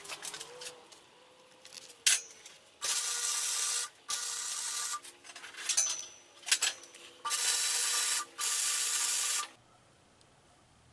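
Welder laying short welds on 2x2 square steel tubing: four bursts of steady crackling hiss, each about a second long, starting and stopping sharply, with a few brief sputters between them.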